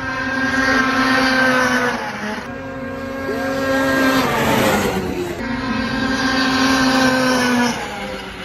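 Racing snowmobile engine at full throttle: a high, steady engine whine that drops in pitch as the sled goes by, three times in a row.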